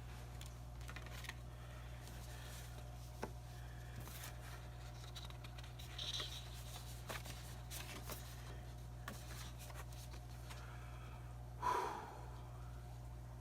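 Steady low hum throughout, with a few faint taps and handling sounds and one short, louder sound near the end.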